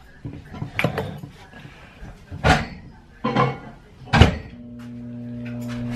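Kitchen handling sounds: a few sharp clunks and knocks of doors and dishware. About four seconds in comes a louder clunk, then a microwave oven starts with a steady low electric hum that slowly grows louder.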